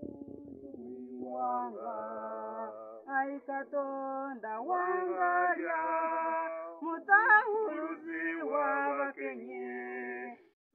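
A boy singing solo and unaccompanied, in long held notes that slide up and down between phrases. A few faint crackles sound in the first second.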